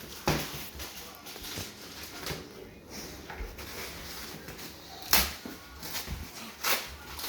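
Handling noise from a folding stroller being adjusted: a few sharp clicks and knocks, one near the start and two more in the last couple of seconds, between softer rustles.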